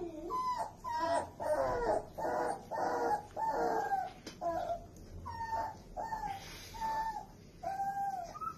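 Dogs whimpering: a run of short, high whines and squeaks, about two a second, many dropping in pitch at the end.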